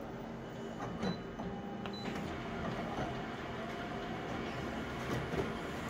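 Colour multifunction photocopier running a copy job: steady mechanical running of the scan and print mechanism, with a few short clicks about one and two seconds in.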